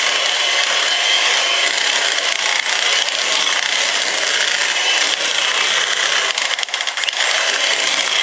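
Electric hand mixer running steadily with a high motor whine, its beaters mashing potatoes in a metal pot. A few sharp knocks come about six to seven seconds in.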